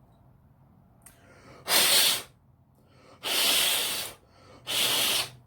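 Three hard puffs of breath blown by mouth through the cleaned ratchet parts to clear out solvent; the middle puff is the longest.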